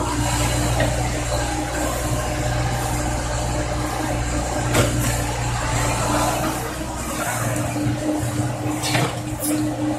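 Komatsu PC70 excavator's diesel engine running steadily while the machine digs and swings, with a low drone that lightens about seven seconds in. A sharp knock sounds near the middle and another near the end.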